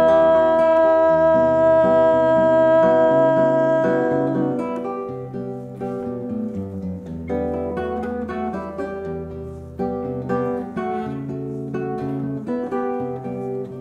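Classical nylon-string guitar accompanying a woman's voice, which holds one long sung note for about the first four seconds. After that the guitar plays on alone, plucking chords and melody notes in an instrumental interlude.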